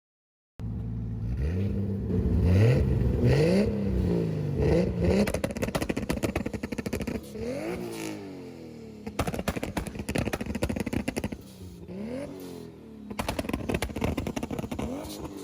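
Toyota Supra engine revving in a series of quick blips, its pitch rising and falling. Between the revs it runs with a fast, rattling pulse.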